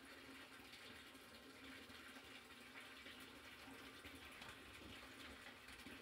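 Faint, steady rush of water pouring into a sump pit and churning around a running 3/4 hp submersible sump pump. The churning traps air bubbles under the pump and airlocks it, so it runs on without shutting off.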